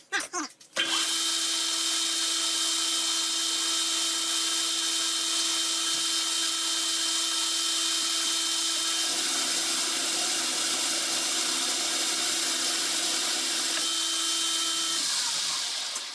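A high-speed power tool starts suddenly and runs at a steady whine with a strong hiss for about fourteen seconds. A rougher working noise joins about nine seconds in, and the tool winds down near the end.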